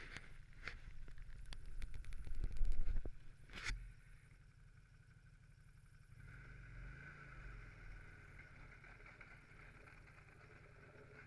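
2007 Ski-Doo Legend Touring snowmobile's V-800 four-stroke engine running as the sled travels over snow. For the first four seconds there is loud rumbling with several sharp knocks on the microphone. Then it settles to a quieter steady drone with a high whine, and the engine pitch rises and falls briefly around the middle.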